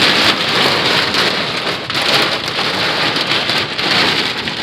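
Heavy rain pelting a vehicle, a dense steady patter of countless drops.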